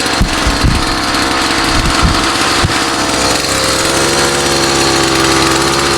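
50cc two-stroke bicycle kit engine running while the bike is ridden, with a few low thumps in the first three seconds. Its note wavers at first, then holds steady from about halfway.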